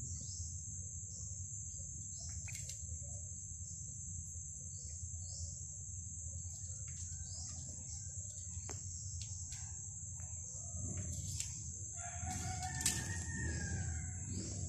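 Background ambience: a steady high-pitched drone with many short falling chirps, and a long drawn-out bird call, about two seconds long, starting about twelve seconds in, under a low rumble.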